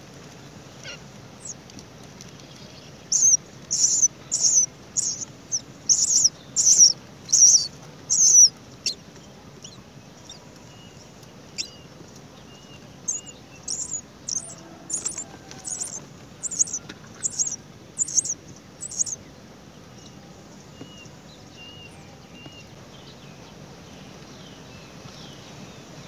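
Great myna calling: two runs of short, high-pitched calls, one or two a second, with a pause of a few seconds between the runs.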